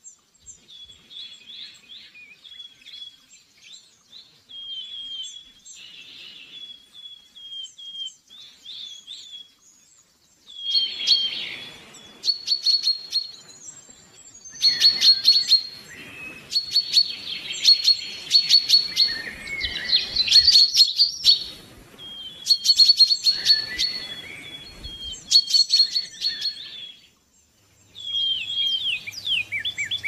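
Songbirds singing: soft high chirps at first, then from about ten seconds in, louder phrases of fast repeated high notes and trills with short pauses between them.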